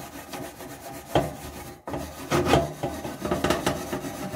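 Scrubbing a wire oven rack, a run of uneven rasping scrub strokes with a brief pause a little under two seconds in.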